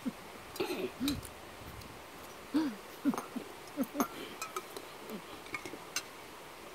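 Small clicks of spoons and chopsticks against bowls at a meal, with about half a dozen short low hummed sounds at irregular intervals between them.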